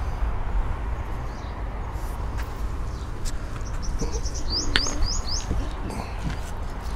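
A small bird chirping: a quick run of four or five short high notes a little past halfway. Underneath is a steady low rumble of wind on the microphone.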